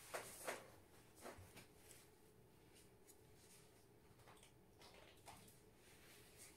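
Near silence: faint room tone with a few short, soft taps and rustles, two of them close together at the start and two more about a second later.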